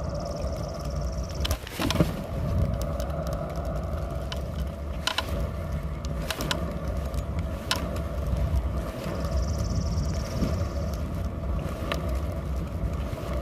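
Kick scooter's small hard wheels rolling on rough asphalt: a steady rumbling hum with scattered clicks and knocks over cracks and bumps, the loudest about two seconds in.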